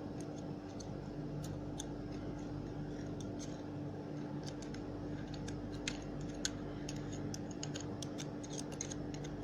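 Faint, irregular light clicks and small scrapes of an impact drill's hammer-mechanism parts being handled and greased, over a steady low electrical hum.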